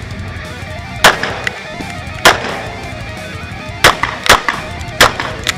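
Five shots from a Ruger GP100 Match Champion revolver, fired at uneven intervals with a quick pair near the middle, under background rock music.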